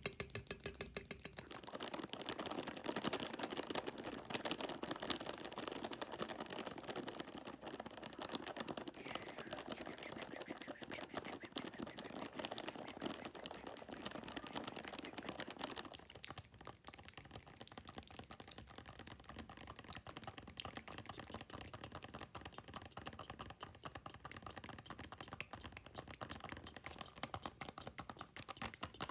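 Very fast fingernail tapping: a dense, unbroken stream of small clicks. The texture is fuller and louder from about two seconds in until about sixteen seconds in, then thins out.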